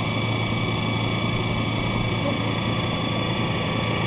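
Homemade electric outboard running steadily under way: a half-inch electric drill motor driving an old outboard's lower unit and propeller. It gives a steady hum with even, unchanging tones, mixed with the rush of water past the boat.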